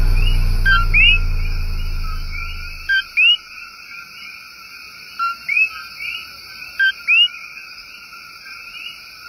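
Coquí frog calling its two-note "co-quí" four times: a short low note, then a higher rising one. Behind it runs a steady chorus of more distant frogs. A low drone fades out over the first three seconds.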